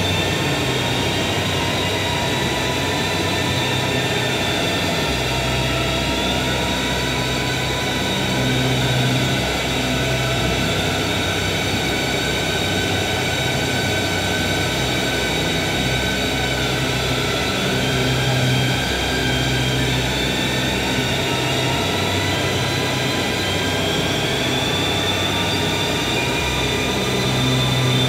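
Experimental drone music with a bowed violin: a dense, steady wall of noise with high tones slowly gliding up and down, over a low hum that pulses on and off every second or two.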